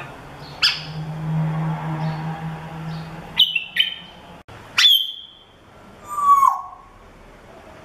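African grey parrot whistling and chirping in short separate calls: a sharp chirp, two quick whistles, a high whistle that drops and then holds, and a lower falling whistle near the end. A low steady hum runs for about two seconds early on between the calls.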